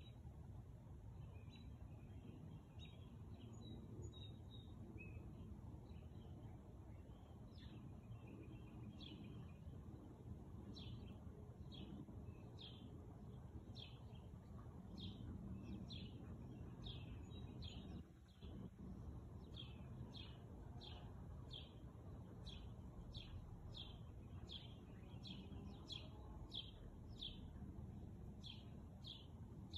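A bird calling over and over: short chirps sliding downward in pitch, scattered at first, then coming steadily about one or two a second from about a quarter of the way in. Under it is a faint, steady low outdoor rumble.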